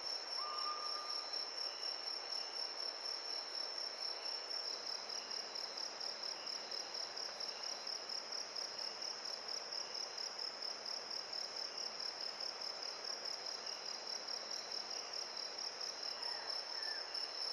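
A cricket chirping steadily in a high, rapidly pulsing trill over a soft background hiss, with a short whistled bird note about half a second in.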